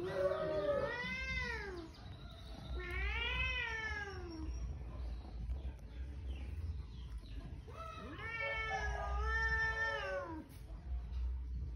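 A cat meowing three times in long, drawn-out calls, each rising and then falling in pitch. The third, about eight seconds in, is the longest.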